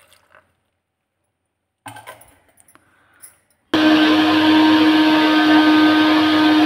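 An electric mixer grinder with a juicer jar switches on suddenly a little over halfway through and runs at a steady high speed with a strong hum, blending beetroot, carrot, ginger and water into juice. Before it starts there are a few faint knocks of handling.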